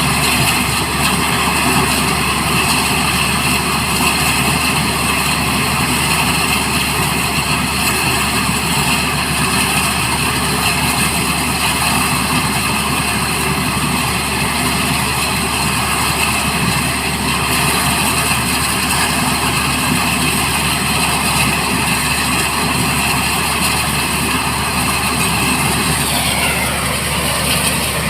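Black Hawk helicopter's twin turboshaft engines and rotor running steadily, a loud whine and hiss; near the end the pitch dips and rises again as the helicopter moves.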